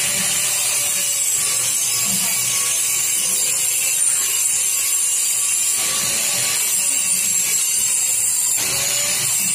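A power tool running steadily with a high-pitched hiss, over a faint steady hum of shop machinery.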